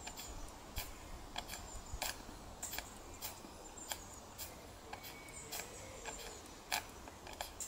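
Kit-built Chiltern model steam beam engine running on steam from a small gas-fired boiler, its mechanism clicking lightly and regularly, a little under twice a second, over a faint steady hiss.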